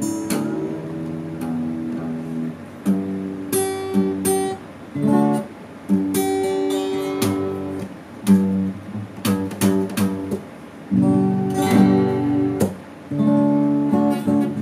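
Steel-string acoustic guitar strummed in chords, each chord struck and left ringing, with short breaks between phrases.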